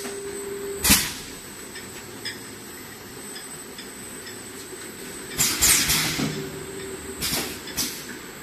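Four-nozzle salsa-brava filling machine and its bottle conveyor running: sharp pneumatic hisses and clacks as the nozzles and stops cycle, loudest in a cluster a little past halfway, over a steady mechanical run, with a brief steady hum twice.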